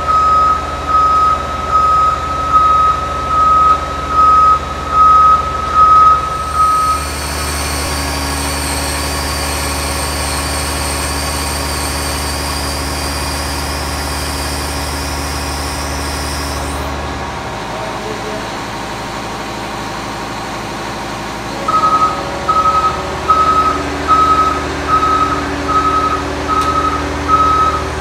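Backup alarm on heavy haulage equipment, beeping about every three quarters of a second. About 7 s in it stops and a steady heavy machine drone with a high whine takes over; around 17 s the drone drops lower. The beeping starts again about 22 s in.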